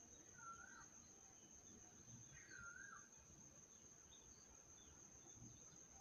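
Asian koel calling faintly: two short wavy whistled notes, the second longer and about two seconds after the first, over a steady high-pitched insect drone.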